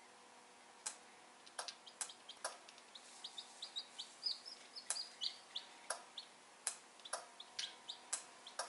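A chick in a homemade balloon incubator peeping in short high chirps, thickest in the middle, among many sharp clicks and taps from the dry-grass nest and balloon being handled.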